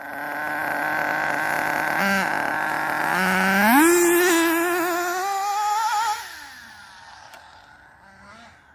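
Radio-controlled car with a two-speed transmission running at speed: a motor and gear whine that rises in pitch as it accelerates about three seconds in, then fades quickly after about six seconds as the car moves away.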